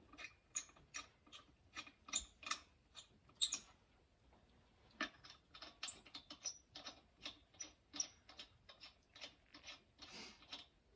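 Lug nuts being spun by hand onto a Jeep's wheel studs: faint, irregular metallic clicking, a few clicks a second, with a pause about four seconds in.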